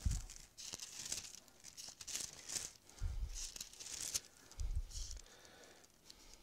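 Thin Bible pages being leafed through, a run of soft papery rustles and flicks, with a few dull low thumps of the book being handled.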